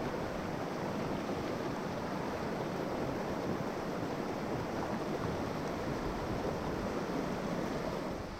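Steady rushing of a trout river's flowing water, an even noise without distinct events.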